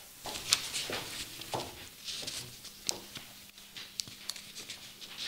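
Footsteps of a person walking up, with soft irregular knocks and a little rustling of paper or clothing.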